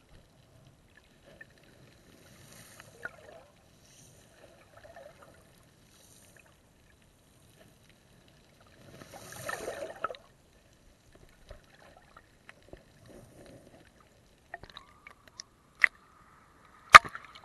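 Shallow sea water heard through a submerged camera: faint gurgles and small knocks, a louder rush of water about nine seconds in, then two sharp slaps near the end as the camera breaks the surface.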